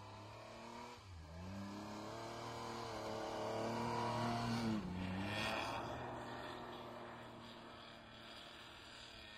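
Isuzu VehiCROSS V6 engine revving hard as the SUV drifts through snow. The pitch climbs for a few seconds, peaks loudest near the middle and drops sharply, with a brief hiss of snow spray, then runs on more steadily and fades. The odd, raspy exhaust note comes from a cracked exhaust downpipe (Y-pipe).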